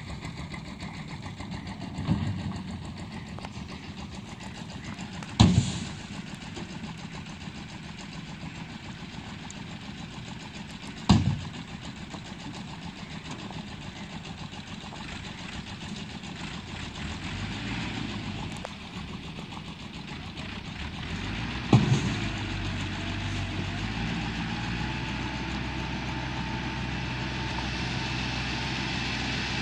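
Massey Ferguson 375 tractor's diesel engine running, broken by four sharp bangs spread through the stretch. In the last third the engine note becomes steadier and a little louder.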